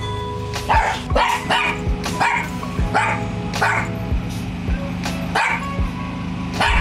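A small Chihuahua–Jack Russell cross dog barking over and over, about one sharp bark every two-thirds of a second, over background music with steady held notes.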